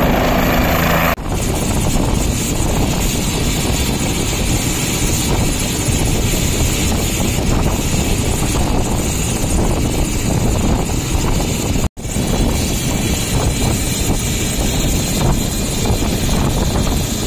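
Helicopter running on the ground with its main rotor turning: a loud, steady engine and rotor noise with rapid blade chop. The sound dips briefly about a second in and cuts out for an instant about twelve seconds in.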